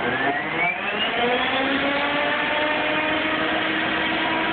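Electric-converted Murray lawn tractor's transaxle gears whining as the DC motor drives them in top gear. The whine rises in pitch over the first second or so as the speed controller brings the motor up to full speed, then holds steady. The motor itself adds little noise.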